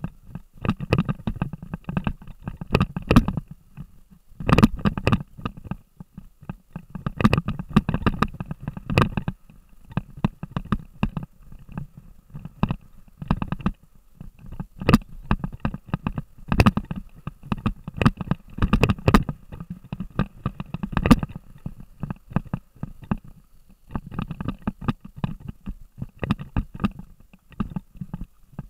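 Action camera jolted down a rough forest dirt trail: irregular clusters of knocks and rattles from its housing and mount over bumps, over a heavy low rumble, coming in surges every second or two.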